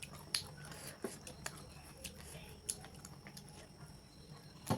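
Close-miked chewing with irregular wet mouth clicks and smacks, a few sharp ones about a third of a second in, near the middle and near the end.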